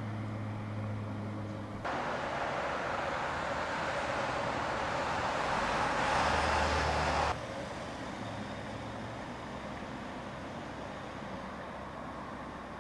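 Street traffic noise: a steady hiss of passing vehicles, much louder from about two seconds in and cutting off suddenly a little past the middle.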